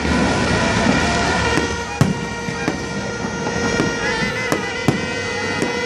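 Fireworks going off in several sharp bangs, the strongest about two seconds in, over a steady horn-like drone and a background of crowd and street noise.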